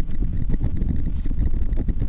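Wind buffeting the microphone of a camera carried on a paraglider in flight: a loud, fluttering low rumble with small crackles.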